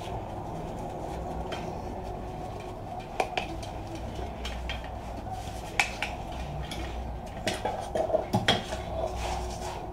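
Sheet-metal casing of a desktop PC power supply (SMPS) being handled and opened: scattered metal clinks and taps, one sharp one about halfway and a quick cluster near the end, over a steady low hum.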